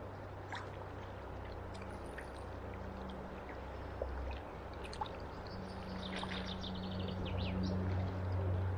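River water flowing and lapping around a wading angler. In the second half, a run of short high ticks and chirps sits over the water.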